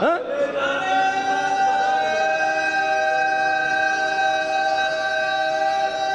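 A man's voice sweeps up and then holds one long sung note, steady for about five seconds, in a devotional recitation.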